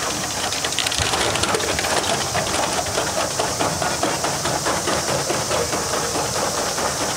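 Roller coaster train rattling along its steel track, the wheels clattering in a dense run of clicks over a steady hiss of wind and rolling noise.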